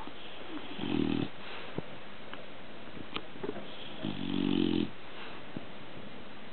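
Bulldog snoring: two snores about three seconds apart, the second one longer, each under a second.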